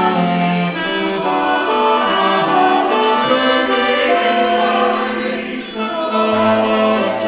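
Choral music with instrumental accompaniment: voices and instruments holding long notes, and a low sustained note coming in near the end.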